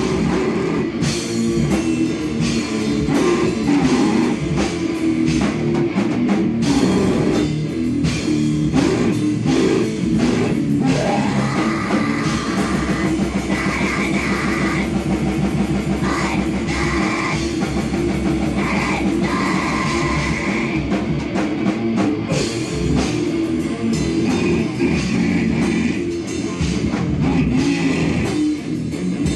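Loud live noise-rock band playing with distorted electric guitar and a drum kit, a dense, unbroken wall of sound.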